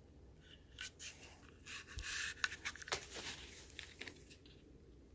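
Faint handling noise from fingers working the small metal trigger parts of a pistol frame with the slide off: a few light clicks and a scraping rub, loudest about two seconds in.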